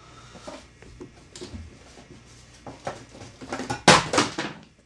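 Boxed action figures being handled: cardboard and plastic window boxes rubbing, scraping and knocking together. There are scattered small taps, then a louder bout of scraping and knocks about four seconds in.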